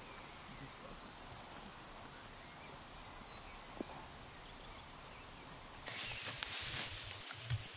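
Faint steady outdoor ambience with a single light click about four seconds in; about six seconds in it gives way to louder rustling with crisp crackles, like movement through dry leaves and twigs.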